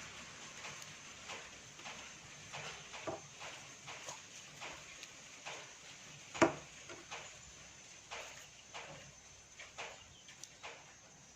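Banana blossom florets being picked over by hand: a string of small, crisp snaps and rustles as the florets are split apart and their stamens pulled out, with one sharper click about six and a half seconds in.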